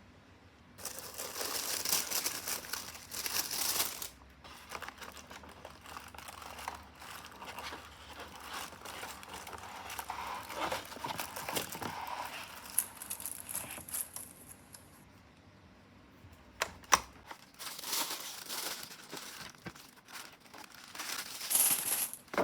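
Packaging being handled and opened: irregular crinkling and tearing rustles, with a few sharp clicks about two-thirds of the way through.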